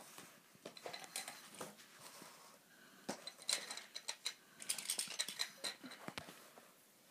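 Hard plastic Hot Wheels track pieces and toy monster trucks clicking and clattering as they are handled and pushed back into place, in quick runs of light taps that are busiest a few seconds in.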